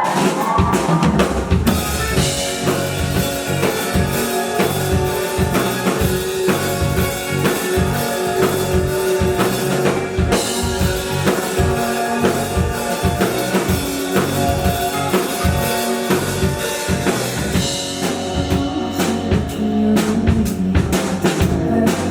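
Live rock band playing an instrumental passage, a drum kit keeping a steady driving beat with kick drum and snare under sustained bass and guitar tones; the top end thins briefly past the middle before a run of hard accented drum hits near the end.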